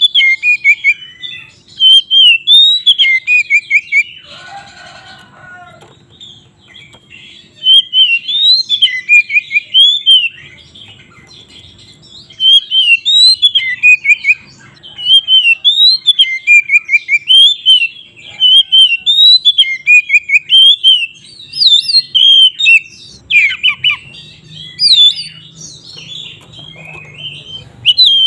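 Oriental magpie-robin (kacer) singing in loud bouts of quick whistled phrases and trills, with short pauses between bouts. A brief harsher sound comes about four seconds in.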